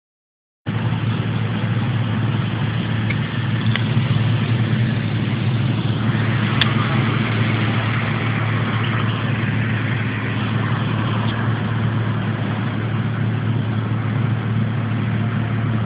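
BMW car engine idling steadily at a standstill, a low even drone, with a couple of faint clicks.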